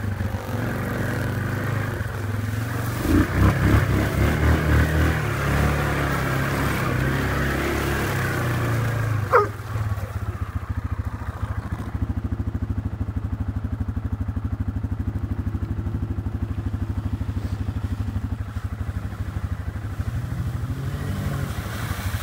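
Yamaha Grizzly 450 ATV's single-cylinder engine running on the trail, revving unevenly about three to five seconds in. After a short squeak about nine seconds in, it settles to a steady, evenly pulsing idle.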